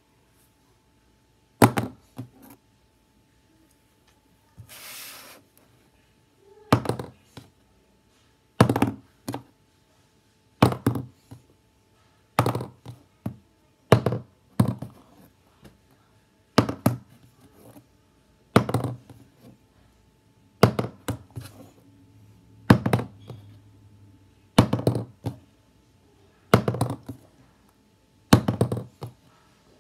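A plastic highlighter tossed to flip and landing on a hard surface, a sharp clack about every two seconds, about a dozen times, each followed by a smaller bounce.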